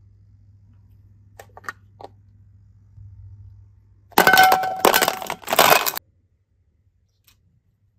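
A few light clicks, then a loud two-second run of clattering and clinking of hard objects with a ringing tone in it, cutting off abruptly.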